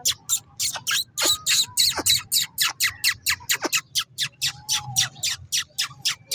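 A crowd of birds chirping and squawking in quick succession, about four or five short, sharp calls a second, some sliding down in pitch.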